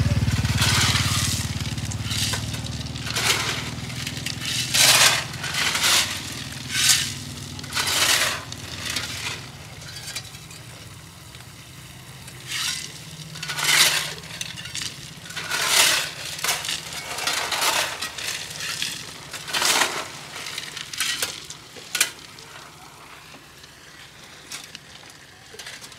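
Irregular scraping strokes, one every second or two, as of a carving tool shaving wood. A low hum fades away in the first few seconds.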